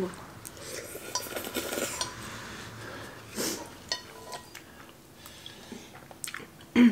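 Chopsticks scraping and clinking against a saucepan as the last instant noodles are picked out of it, with one sharper clink about halfway through. A brief vocal sound comes right at the end.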